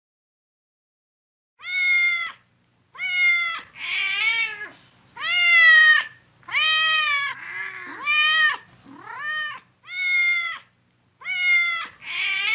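A cat meowing over and over: about ten separate meows, each falling in pitch at its end, starting about a second and a half in.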